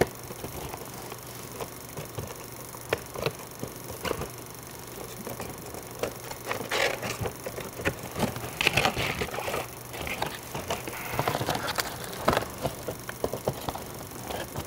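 Cardboard-and-plastic doll packaging being opened by hand: scattered clicks and taps with bursts of crinkling rustle as the box is pulled open and the doll is worked out of its insert.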